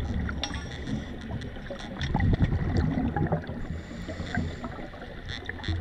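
Underwater sound on a diving camera: a steady low rumble of water noise with scattered sharp clicks and crackles, louder for a moment about two seconds in.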